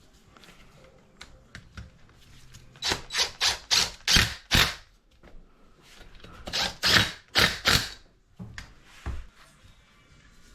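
Hand tool working on metal small-engine parts: two runs of short rasping strokes, about three a second.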